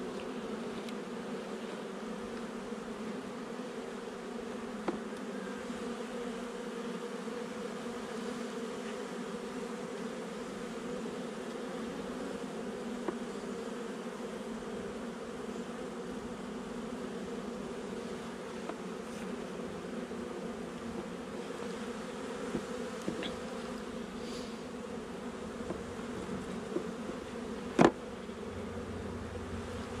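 Honeybee colony buzzing steadily, a low even drone with a higher band above it. A few light clicks come through it, and one sharp knock near the end.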